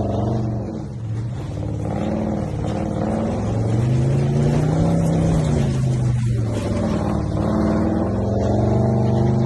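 Ford 4.6-litre V8 running in a car, the revs rising to a peak about halfway through, dropping back, then climbing again near the end.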